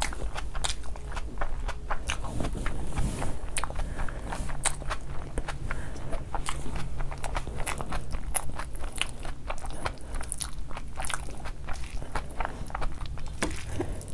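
Close-miked eating sounds: chewing and wet mouth clicks as fried rice and prawns are eaten by hand, a dense run of irregular sharp clicks.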